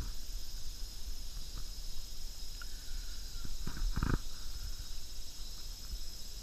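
Steady high-pitched insect drone over a low rumble, with a couple of soft thumps about four seconds in.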